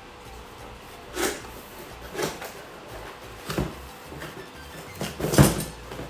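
Cardboard packaging being handled and pulled open: a series of five short scrapes and knocks, the loudest near the end.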